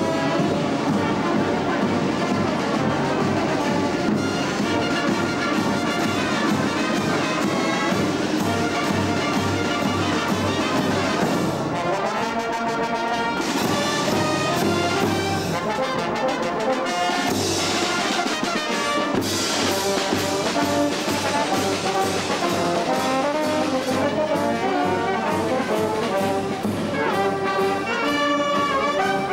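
A txaranga, a Basque street brass band, playing a lively tune on saxophones, trumpets and drums as it marches.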